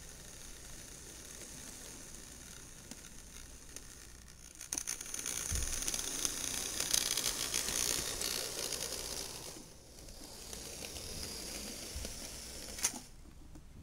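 HO scale Athearn GP40X model diesel locomotive running along sectional track, its motor, gears and wheels making a mechanical running sound. The sound grows louder from about five seconds in, for a few seconds while it passes close by, then eases, and a single sharp click comes near the end.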